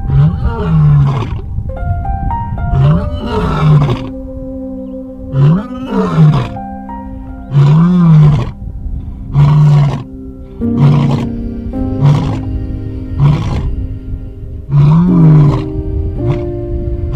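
Male lion roaring, a long series of deep calls, each rising and falling in pitch, about nine in all and coming every second or two. Background music with held notes plays underneath.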